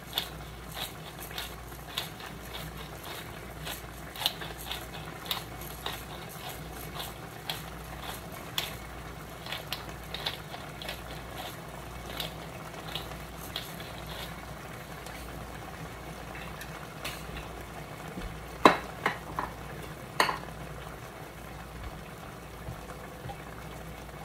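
A spoon stirring menudo stew in a cooking pot, clicking and scraping against the pot about twice a second, over the steady sizzle of the simmering stew. Two louder knocks of the spoon against the pot come about three-quarters of the way through.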